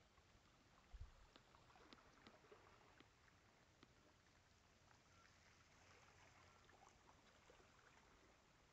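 Near silence: faint outdoor hiss with scattered tiny ticks and one soft low thump about a second in.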